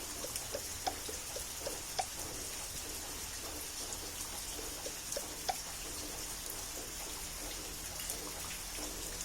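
Steady rain falling at night, an even hiss with scattered louder drips; the sharpest drops land about a second in, about two seconds in, and about five and a half seconds in.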